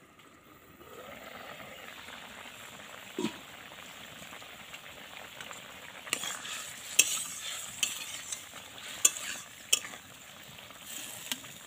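Vegetables simmering in water in a karai. The lid comes off about a second in and the bubbling grows louder, with a single knock about three seconds in. From about six seconds a steel spatula stirs and scrapes against the pan, giving several sharp metallic clinks.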